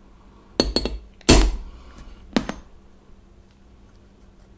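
Hammer tapping a pin punch to drive the nozzle pin into an airsoft WE M4 GBB rifle's bolt carrier, seating it flush. A few quick light taps, then a louder strike with a short metallic ring just after a second in, then a quick double tap.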